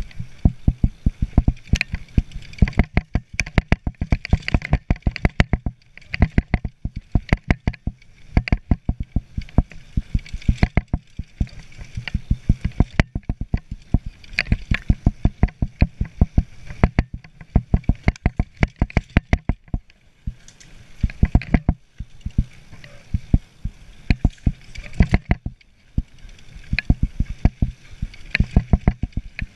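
Mountain bike rattling and clattering as it rides fast down a rough dirt trail, a dense run of knocks from bumps jolting the bike and camera mount, easing off briefly a few times.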